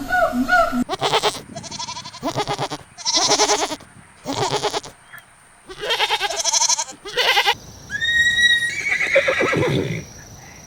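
Farm animals calling: a series of short, quavering calls one after another, separated by brief pauses.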